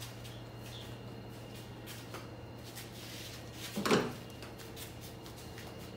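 A single short clunk about four seconds in, with a few faint clicks, over a steady low hum.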